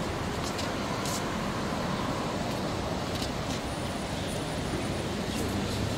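Steady outdoor town noise, a hum of road traffic, with a few faint clicks.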